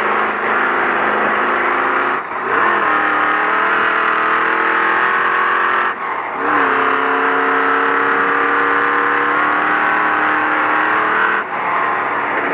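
Ford Ranger prerunner race truck's engine running hard at high, steady revs, heard from inside the cab over road and tyre noise. Three times, about two, six and eleven seconds in, the revs dip briefly before picking up again.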